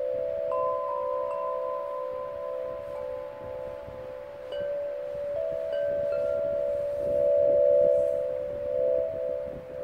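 Crystal glass tube chimes on a curved wooden frame, struck with a ball-tipped wand: two low notes ring on steadily while higher single notes are struck about half a second in and several more in the middle, the ringing swelling near the end.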